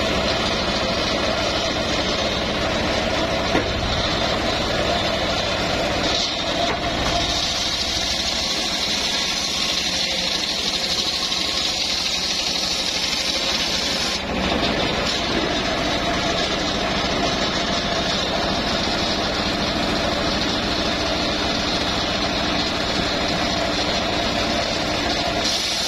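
Homemade engine-driven circular sawmill ripping a teak log lengthwise: the blade cuts steadily through the wood over the running engine. The cutting sound dips briefly a couple of times.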